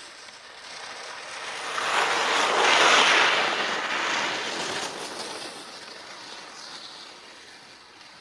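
Skis hissing over snow as a skier passes by, swelling to its loudest about three seconds in and then slowly fading away.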